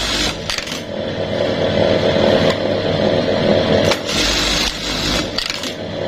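Juki LBH-781 buttonhole machine running a cycle, motor and flat-belt drive turning with a steady mechanical whir that shifts in level every second or so as it sews and works its cutter knife. The shifter guide has just been reset so the belt runs on the free pulley, a fix for a cutter running too fast and too loud.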